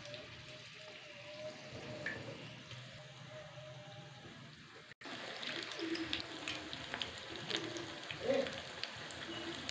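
Potato slices frying in hot ghee in a small pan: a soft sizzling hiss that turns denser about halfway through, with many small sharp crackles.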